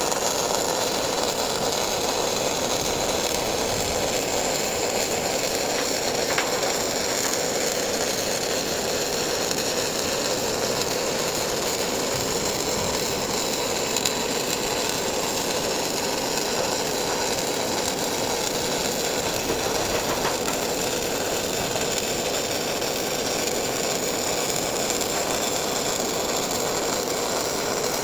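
MIG welding arc on a steel H-bar, a steady continuous sound with no breaks.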